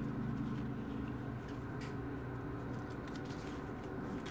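Paper pages of a small spiral-bound journal being handled and turned: light rustling with a few soft taps, over a steady low hum.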